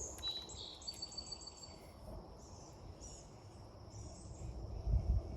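Songbirds chirping and calling, with short high chirps and a brief whistled note in the first couple of seconds, over a faint steady insect hum. A low rumble swells near the end.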